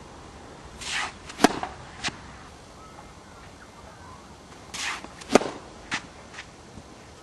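A tennis ball struck hard with a racket twice, about four seconds apart, each sharp hit preceded by a brief swishing sound. Fainter pops of the ball landing or being hit back follow each stroke.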